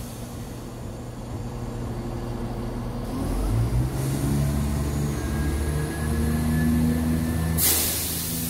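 Class 171/7 diesel multiple unit's engine idling close by, then its note steps up about three seconds in as the power comes on and the train pulls away, holding a steady, higher drone. A loud hiss starts near the end.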